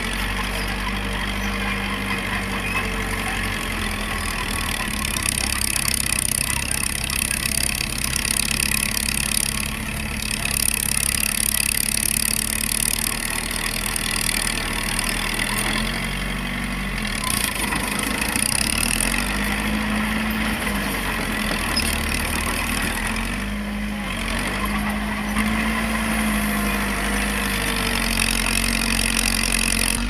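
Diesel engines of a Cat crawler excavator and a small crawler bulldozer running steadily while they work, the engine note rising and falling several times under load.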